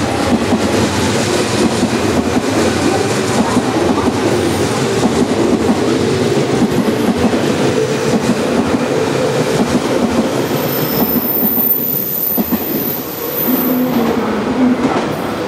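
Electric commuter train running on the tracks, wheels clattering rhythmically over rail joints; the sound eases off about twelve seconds in.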